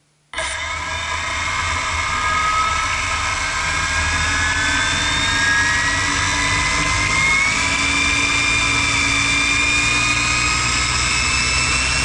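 Quadcopter's electric motors and propellers starting abruptly and running with a steady whine that slowly rises in pitch.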